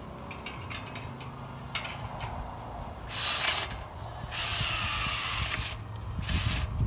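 Cordless drill driving a fastener into the blind's steel tube frame, in three runs: a short one about three seconds in, a longer one of over a second, then a brief final burst near the end. Light metal clicks of handling come before the first run.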